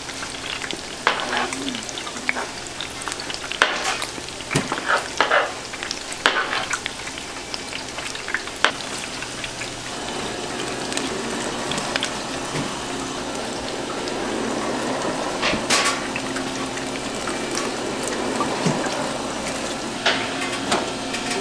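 Fish cakes frying in the hot oil of an automatic fish cake machine's fryer: a steady sizzle, with scattered sharp clicks and knocks during the first half and a more even sizzle and faint machine hum later.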